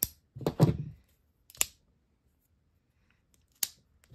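CRKT Provoke karambit folding knives being worked open and shut: a handful of separate sharp metallic clicks and snaps as the blades swing out and lock, with the loudest snap near the end.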